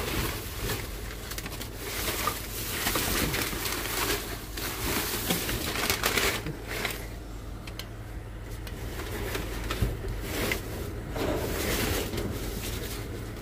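Crumpled brown packing paper rustling and crinkling as a hand digs through it in a dumpster, in repeated bouts with a quieter lull partway through.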